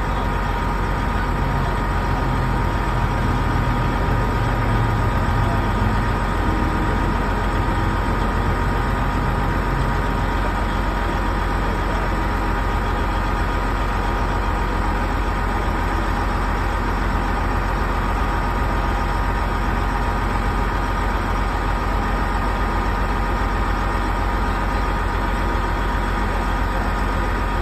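Heavy tow truck's diesel engine running steadily, with a steady high whine over the low engine hum.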